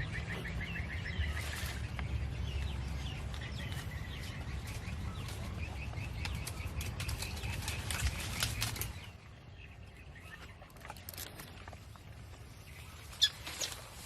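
Low rumbling noise with scattered clicks and a few bird chirps; the rumble drops away about nine seconds in.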